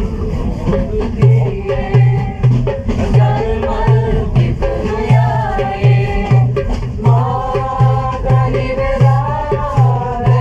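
Hand drum played with the hands in a steady, quick rhythm, starting about a second in, with people singing a folk-style song over it.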